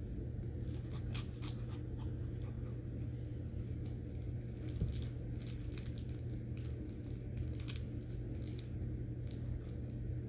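A Morkie puppy chewing and gnawing a plush dog toy: irregular crunchy crackles and crinkles from the fabric, over a steady low hum.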